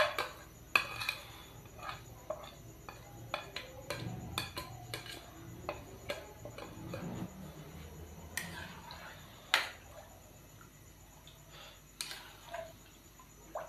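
Plastic spoon scraping shredded chicken off a ceramic plate into an aluminium karahi of stock, with irregular taps and clinks of spoon against plate and pan, then stirring in the pan near the end.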